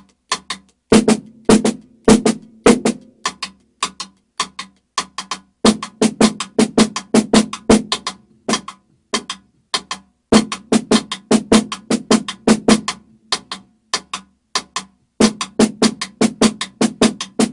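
Drumsticks playing the flam Swiss Army triplet rudiment: quick runs of sharp strokes in repeated phrases with short gaps between them, over a faint low thud.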